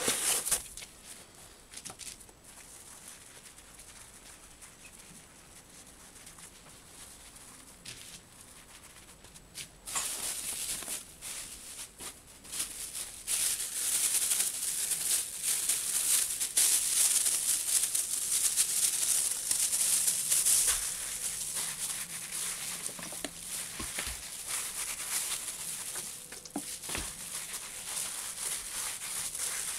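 Crumpled plastic bag rubbed against the inside of a wet wool-felt slipper, a crinkling, rasping rustle as the felt is fulled to shrink it. Quiet handling for the first third, then louder steady rubbing from about ten seconds in.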